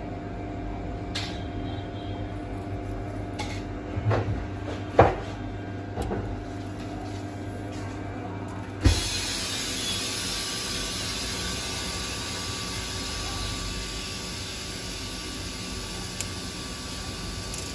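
A steady low hum with a few sharp clicks and taps as tools and a squeeze bottle are handled against the metal clamp of a phone screen-separator machine, the loudest about five and nine seconds in. About nine seconds in the sound changes abruptly to an even hiss.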